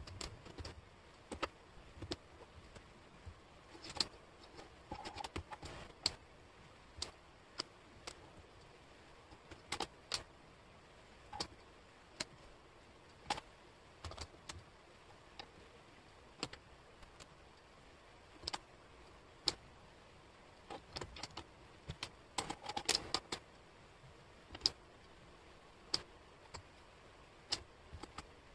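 Small wooden jigsaw puzzle pieces clicking and tapping against each other and the table as they are picked up, shuffled and set in place: scattered sharp clicks, with a brief flurry of clattering about three quarters of the way through.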